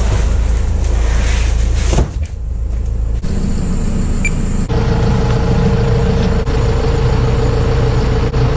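Delivery step van's engine running at idle: a steady low hum that gains a steady whining tone about halfway through.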